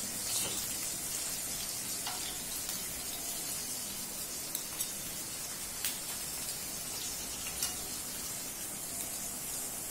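Chicken pieces frying in hot oil in a pan, a steady sizzle, with a few short clicks of metal tongs as the pieces are lifted out onto a plate.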